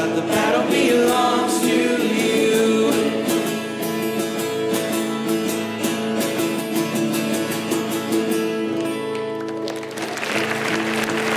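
Worship band ending a song with acoustic guitar and singing, the closing chord held and ringing. The congregation begins applauding about ten seconds in.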